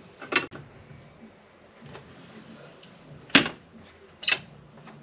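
Three sharp knocks or clatters: a quieter one about half a second in, the loudest about three and a half seconds in, and another just after four seconds.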